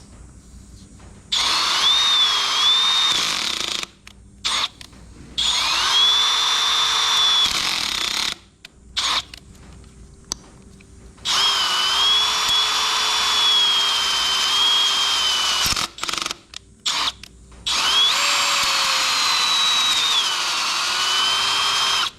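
Electric drill boring a hole into an engine block for a crack-stitching repair. It runs in four long bursts with short trigger blips between them, and its whine sags and recovers in pitch as the bit loads up.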